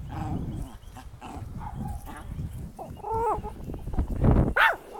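Small dog barking in short, high-pitched yaps, twice: once about three seconds in and louder near the end.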